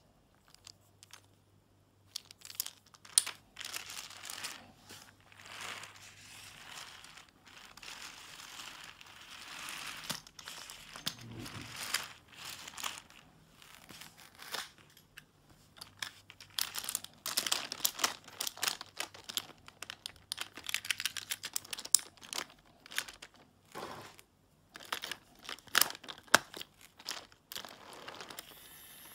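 Irregular crinkling and crackling, with many sharp clicks scattered through it, pausing briefly about three-quarters of the way in.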